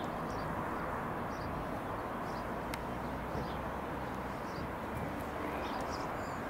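Bell 505 Jet Ranger X helicopter, a single-turbine machine, passing in the distance as a steady drone, with faint short high chirps over it.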